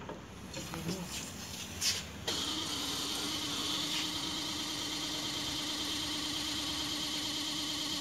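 Small 24-volt circulating water pump, fed directly by a 5-watt solar panel, starting up abruptly about two seconds in after a few light clicks. It then runs steadily with a low hum and a higher whine.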